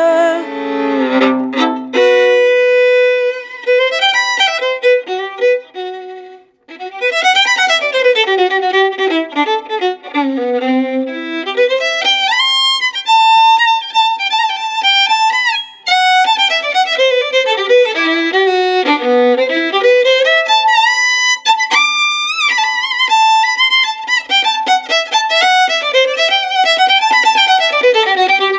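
Fiddle solo between sung verses: a single bowed violin line moving up and down with slides between notes, with a short break about six and a half seconds in.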